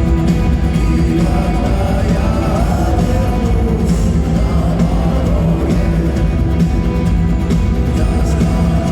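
Rock band playing live in an arena, with a singing voice over the band.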